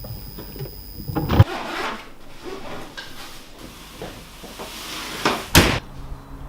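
A sharp knock or bang about a second and a half in, then rustling and shuffling, and a second loud bang near the end, like a drawer or cupboard being shut.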